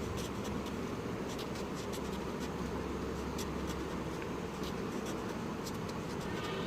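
Pen drawing on paper: short, irregular strokes over a steady low background hum.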